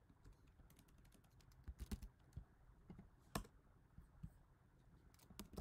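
Keystrokes on a computer keyboard: a few scattered taps, one louder tap about midway, then a quick run of keystrokes near the end.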